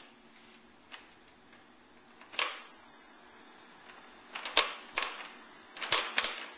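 Hard plastic clicks and clacks from a baby's jumperoo bouncer and the toys on its tray as the baby bats them and bounces: a few single knocks, then quick clusters of clacks near the end.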